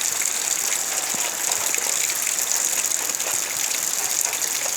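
Steady rainfall: an even, constant hiss with scattered small drop ticks through it.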